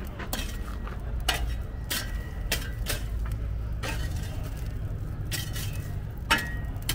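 Scattered light clinks and knocks of dishes, utensils or trays being handled, the loudest a sharp knock near the end, over a steady low hum.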